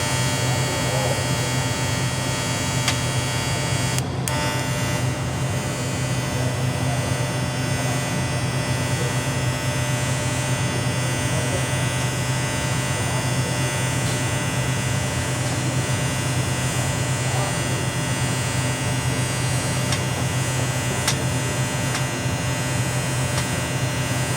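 Arc welding: a steady electrical buzzing hum that holds at an even level, with a brief dropout about four seconds in.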